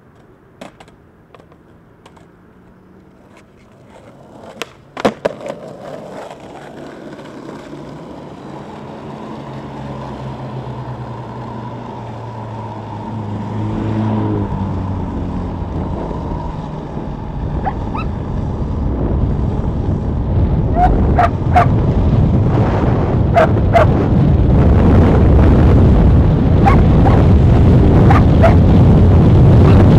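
Skateboard wheels rolling on asphalt, the roar growing steadily louder as the board picks up speed downhill. There are a few sharp clacks about five seconds in and some short high chirps later on.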